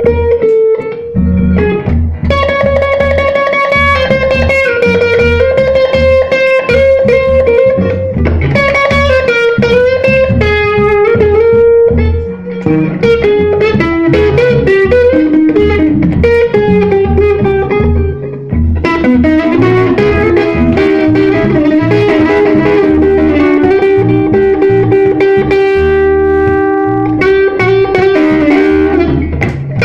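Live blues band playing an instrumental passage: an electric guitar lead with bent and held notes over bass and drums.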